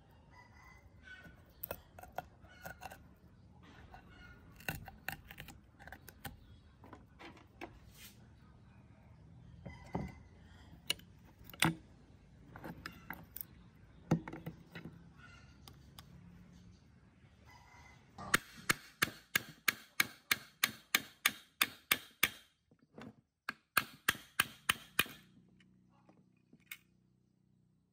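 Hand work on metal tool parts: scattered clicks and knocks, then two runs of rapid, evenly spaced sharp clicks, about five a second, the first lasting about four seconds and the second under two.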